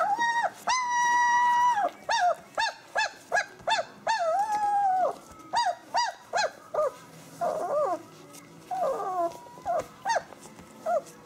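Three-week-old puppies whining and yelping in high-pitched voices. One long whine comes about a second in, followed by a quick run of short yelps and a few wavering whines.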